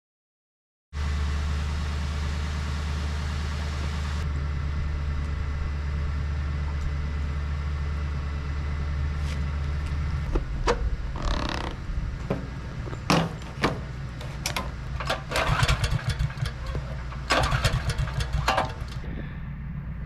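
Portable generator's engine running at a steady speed, cutting in suddenly about a second in. Over its second half come irregular sharp clicks and knocks.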